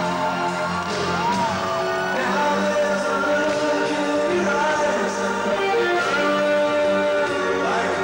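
Music with singing, at a steady loud level.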